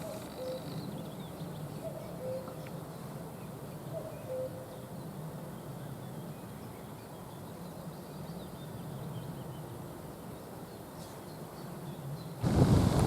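Common cuckoo calling its two-note "cu-ckoo", high then low, about three times in the first few seconds, with faint chirps of small birds. Near the end, wind buffets the microphone loudly.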